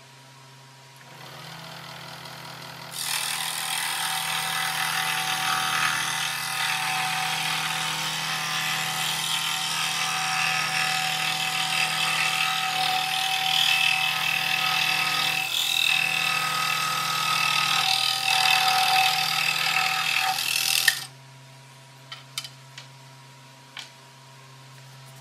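Scroll saw running, its blade cutting through a wooden board in a loud, steady, buzzing rasp that stops suddenly about three-quarters of the way in, followed by a few light clicks.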